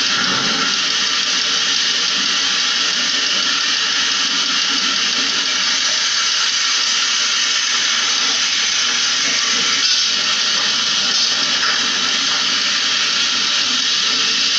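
Steady hiss of a water jet from a hose spray gun, blasting onto a window-type air conditioner's chassis during cleaning.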